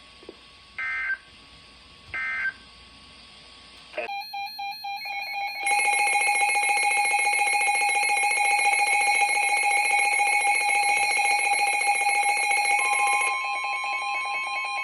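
Emergency Alert System tones: two short warbling data bursts that end the previous alert, then a new alert's data burst, then a long, loud, steady attention tone, with an extra steady tone joining near the end.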